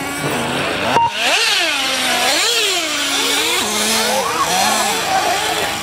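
Small nitro engines of several radio-controlled off-road trucks racing, their high-pitched whine sweeping up and down as they accelerate and lift off through the corners. A sharp click about a second in, after which the sound is louder.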